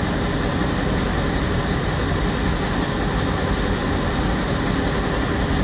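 Boat engine running steadily, an unbroken low noise with no breaks.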